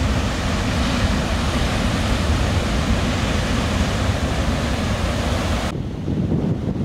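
Heavy ocean surf breaking, a steady rushing hiss over a low rumble of wind buffeting the microphone. Near the end the hiss cuts off suddenly, leaving mostly the low wind rumble.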